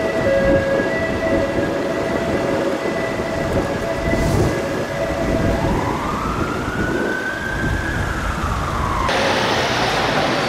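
Police car siren sounding in slow traffic, changing about halfway to a slow wail that rises and then falls, over a steady rumble of traffic. Near the end it cuts abruptly to the noise of a busy street.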